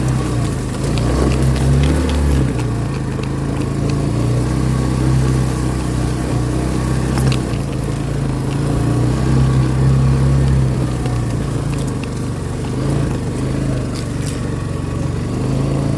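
A vehicle engine running steadily while driving, its note shifting a little, with scattered rattles and clicks.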